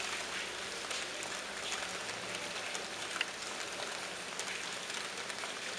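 Monsoon rain falling steadily and splashing into standing water on a terrace, an even hiss dotted with individual drop splashes. One sharper tap stands out about three seconds in.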